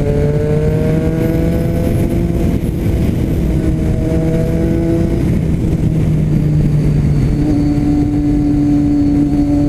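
Motorcycle engine through an aftermarket Jeskap exhaust, heard from the rider's seat. The note rises as the bike accelerates over the first couple of seconds, holds, eases off around the middle, then runs steady again, over a steady low rush.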